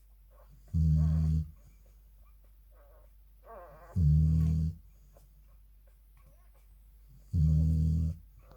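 Labrador retriever mother snoring: three deep snores, each under a second long and about three seconds apart.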